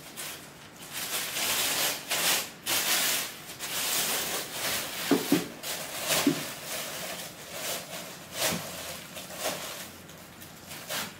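Thin plastic carrier bag rustling and crinkling in uneven bursts as it is opened and packed by hand.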